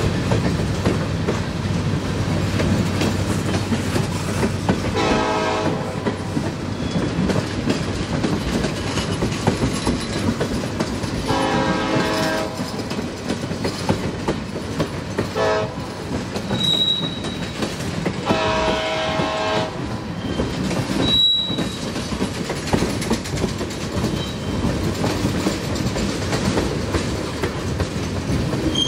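Freight locomotive horn sounding the grade-crossing signal: long, long, short, long. Underneath it run the steady rumble of the Norfolk Southern SD70M-led locomotives and the click of their wheels on the rails. A few brief high-pitched wheel squeals come in the second half.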